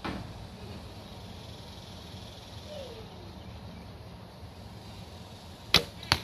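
A Sarles Sierra longbow's string released with a sharp snap, followed about a third of a second later by a second sharp smack as the arrow strikes the target.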